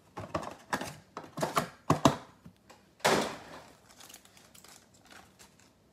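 Foil trading-card packs being taken out of a cardboard box and tapped into a stack on a table: a run of light taps and clicks, then a brief crinkly rustle about three seconds in.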